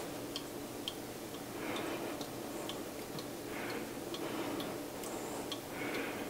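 Liquid flavoring drops falling one at a time from a squeeze dropper bottle into a container of water, each a faint tick, about two a second.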